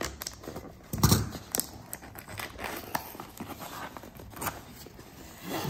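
Scissors cutting through the seal on a cardboard camera box, then the box's end flap being pulled open: scattered clicks, scrapes and papery tearing, the sharpest snap about a second in.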